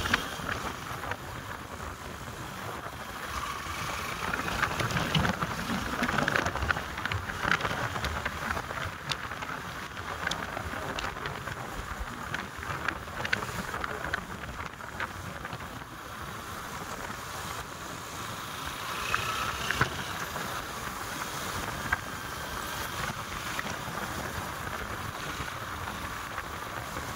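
Wind rushing over the microphone with a vehicle running underneath, a steady noise broken by scattered knocks and crackles.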